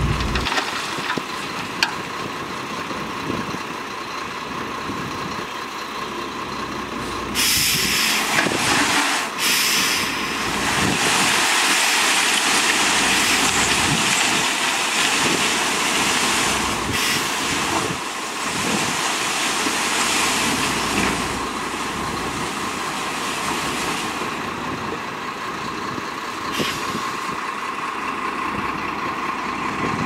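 Tipper semi-trailer dump truck running with its body raised while a load of soil slides out. From about seven seconds in, a loud hiss joins the engine and holds for some fourteen seconds before dying back.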